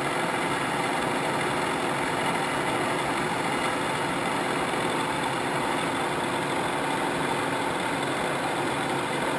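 Kitamura T-20 CNC vertical machining center running steadily with its spindle turning in high gear.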